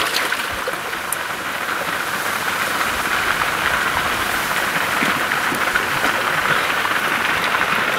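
Steady splashing and trickling of shallow lake water around a floating fish cradle holding a large sturgeon, as the cradle is worked in the water; it gets a little louder after a couple of seconds.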